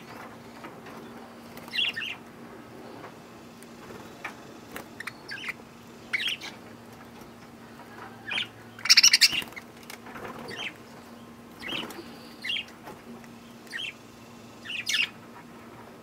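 Budgerigars giving short, scattered chirps with wings flapping as they land and shift about, the loudest flurry about nine seconds in. A faint steady hum runs underneath.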